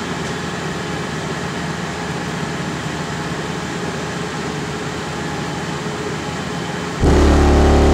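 A vehicle engine idles steadily, then about seven seconds in a sudden, very loud bass burp from a car audio system's two DD Audio 9918 subwoofers cuts in: a deep low tone played in a short burst for an SPL meter reading.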